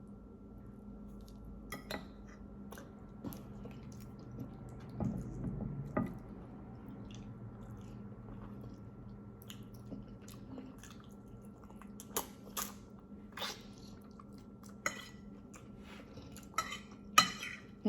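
Close-up eating sounds: chewing, with scattered clicks of cutlery against a plate that come more often and louder in the last few seconds. A faint steady hum runs underneath.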